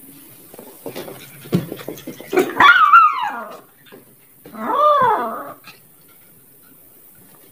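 Small dog giving two drawn-out barks, each about a second long and arching up then down in pitch, a couple of seconds apart, after a few light knocks.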